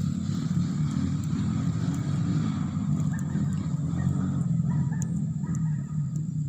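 Motorcycle engine running steadily, a continuous low rumble.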